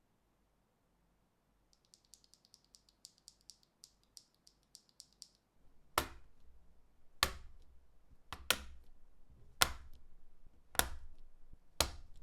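Mechanical keyboard with Kailh MX BCP switches in a Cycle7 case without foam, typed on: a quick run of light key presses at about four a second, then six much louder, heavier keystrokes about a second apart.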